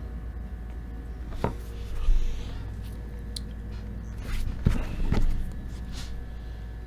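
A few scattered knocks and clicks from computer hardware being handled on a workbench, over a steady low hum.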